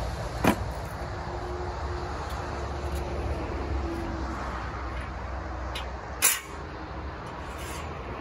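Two sharp clicks of equipment being handled, one about half a second in and a louder one about six seconds in, over a steady low outdoor rumble.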